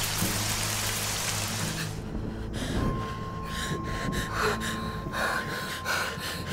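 Steady rain hiss over a low music drone. About two seconds in the rain drops away, a thin steady high tone comes in, and a woman's short, irregular gasping breaths follow.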